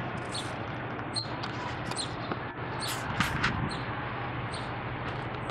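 Demolition site ambience: a steady low machine hum under outdoor noise, with scattered short knocks and brief high chirps.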